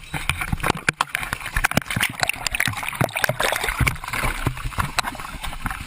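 Seawater splashing and sloshing close up, with many irregular knocks and bumps, as people struggle through the water around a sinking small plane.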